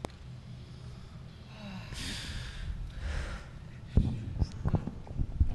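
A man crying: two sharp, sniffling intakes of breath about two and three seconds in, then a sudden thump about four seconds in followed by short, uneven sounds.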